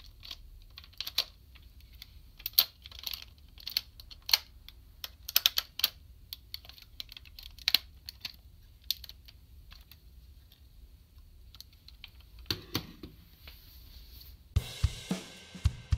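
Hard plastic parts of a DX Kerberios combining robot toy clicking and clacking as they are pulled apart and snapped into place by hand, in irregular sharp clicks. Near the end, background music with drums starts.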